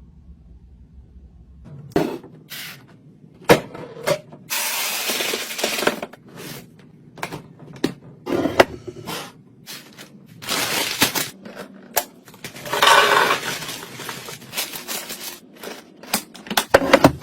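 Food containers, jars and bottles being handled and set down while restocking a fridge: irregular clinks, taps and knocks, with two longer stretches of rustling packaging.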